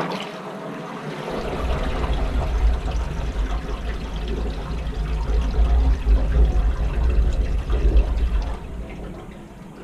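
Water rushing down a newly rebuilt sink drain with a deep rumble, run as a test of the new trap and trap adapters. The rumble comes in about a second in and fades near the end.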